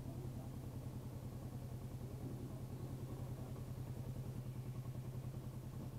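Motorcycle engine running steadily at low revs, a low even hum with a rapid regular pulse.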